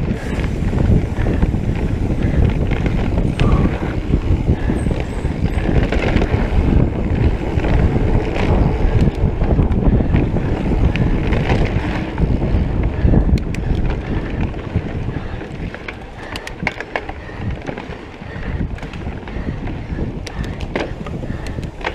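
Mountain bike ridden fast over a dirt singletrack: wind buffeting the camera microphone over the rumble of the tyres, with frequent clicks and knocks from the bike over bumps, more of them in the second half.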